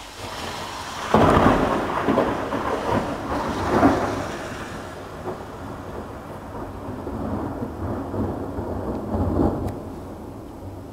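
Thunder after a nearby lightning flash: it breaks suddenly about a second in, then rolls on in a long rumble with several surges, the last one near the end, slowly dying away.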